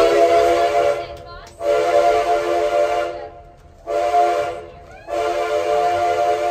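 Steam locomotive chime whistle sounding four blasts, each a steady chord of several notes with a breathy hiss; the last blast is the longest. Heard from inside a passenger coach behind the engine.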